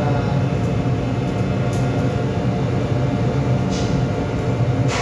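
Steady low mechanical drone of a ship's running machinery, with a short tick near the end.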